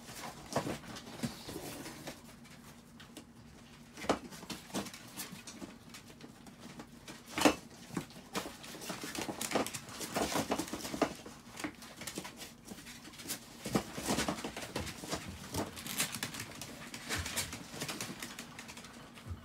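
Small dogs' paws and claws pattering and tapping irregularly on a fabric mat and a plastic pee tray as they move about, with one sharper knock about seven seconds in. A faint steady low hum runs underneath.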